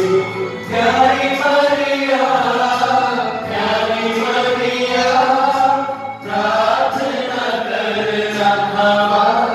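A congregation singing a Hindi rosary prayer together in unison, in long phrases on held notes, with brief breaks for breath about half a second in and again around six seconds in.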